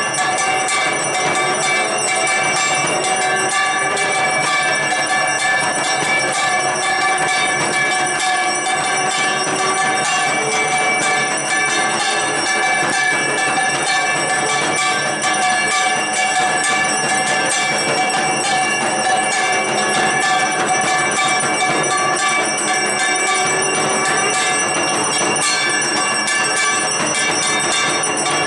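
Bells and metal percussion ringing continuously in a fast, dense clangor, with several steady ringing tones held throughout: the ritual bell-ringing that accompanies the aarti lamp offering.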